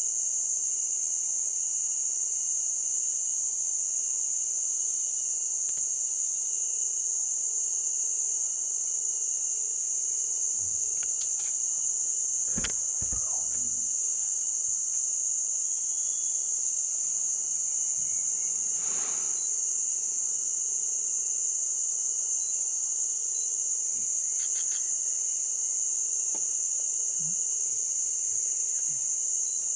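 Dense chorus of insects in the rainforest, a steady high-pitched drone that never lets up, with a couple of brief knocks about halfway through.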